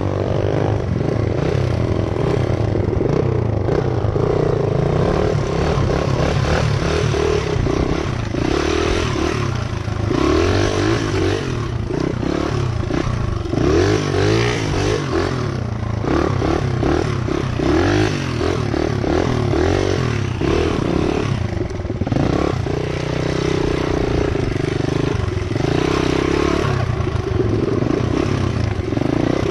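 Honda XR100 trail bike's single-cylinder four-stroke engine running under way, its revs rising and falling again and again with the throttle.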